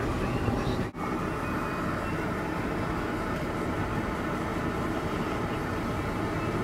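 Steady road and engine noise heard from inside a moving car's cabin, cutting out briefly about a second in.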